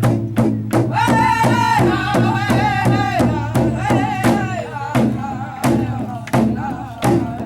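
A drum beaten in a steady pulse, about three beats a second, with singing over it from about a second in to about five seconds in.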